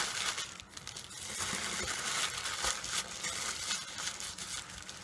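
White paper crinkling and rustling as it is folded and wrapped by hand, in a quick run of short crackles.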